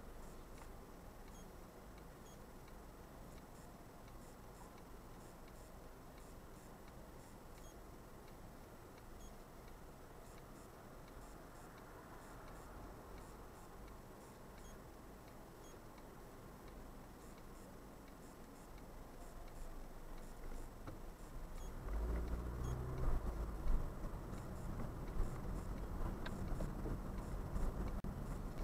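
Inside a car's cabin: the car idles at a standstill with the turn indicator ticking steadily. About twenty seconds in, the car pulls away and engine and road noise rise.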